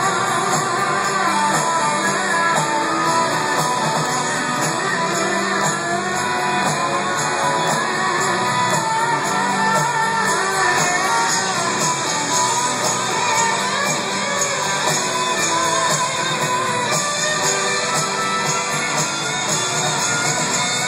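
Rock band playing live in an arena, electric guitar prominent over drums, recorded on a phone in the crowd.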